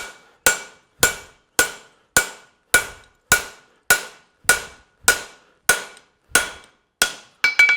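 A farrier's hammer strikes a narrow fuller into a hot steel horseshoe on the anvil, fullering the nail groove around the shoe. The blows are steady and even, a little under two a second, each with a short metallic ring, and two come in quick succession near the end.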